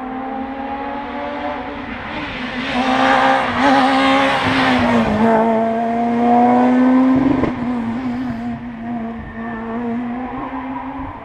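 Rally car engine held at high revs as the car goes past. The pitch dips briefly about five seconds in and then climbs steadily, with a rush of tyre noise in the middle. It is loudest midway and fades near the end.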